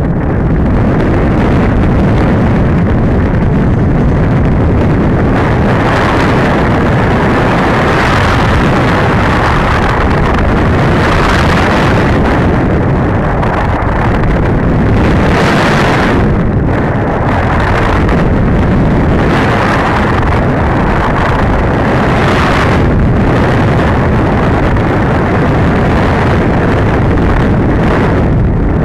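Wind rushing over a radio-controlled glider's onboard camera microphone in flight. It is a loud, steady noise that swells and fades every few seconds.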